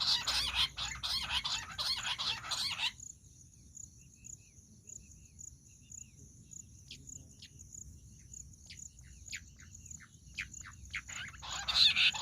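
Bush quail calling: a loud, fast run of rapid chattering notes that stops about three seconds in, then a few faint falling whistles, before the loud chattering starts again near the end.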